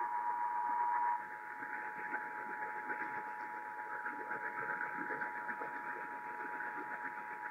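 Emergency Alert System two-tone attention signal (853 Hz and 960 Hz sounding together) announcing a Required Monthly Test, heard over a radio with a steady hiss beneath it. The tone is held without a break and drops a little in level about a second in.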